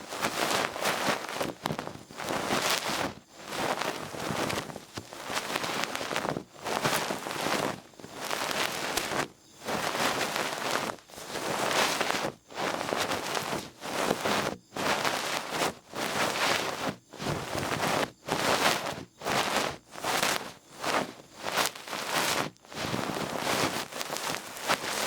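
Feather-tipped ear pick (duck-feather ear cleaner) brushing and rubbing against the microphone in repeated strokes, a rustling hiss of about one stroke a second with brief pauses between.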